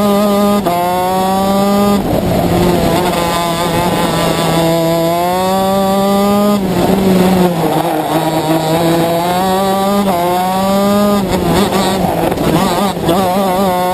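Shifter kart's two-stroke engine at racing speed, revving up in long rising runs that drop suddenly at each gear change, about half a second, six and a half and eleven seconds in. Near the end the pitch warbles up and down quickly before rising again.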